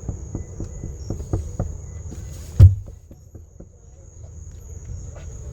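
Quick footsteps and handling knocks, several a second, with one loud thump about two and a half seconds in, over a faint steady high-pitched whine.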